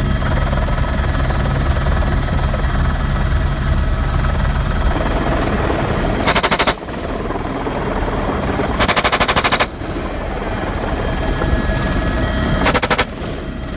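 Three short bursts of automatic fire from a door-mounted M249 SAW light machine gun: the first about six seconds in, a slightly longer one about nine seconds in, and a brief one near the end. Under them, the steady running of an AS350 B2 A-Star helicopter's engine and rotor.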